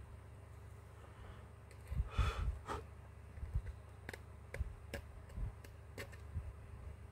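A metal pick scraping and tapping on a Huawei P20 lite's display frame while old adhesive is picked off, making short sharp clicks about every half second from four seconds in. A louder soft rustle comes about two seconds in.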